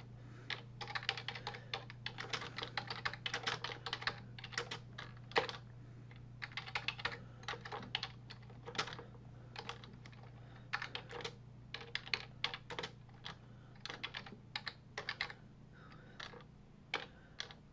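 Computer keyboard typing in uneven runs of keystrokes broken by short pauses, over a low steady hum.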